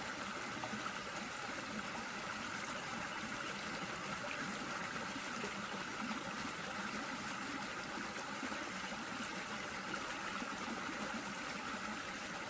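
A shallow stream running over rocks, a steady even rush of water.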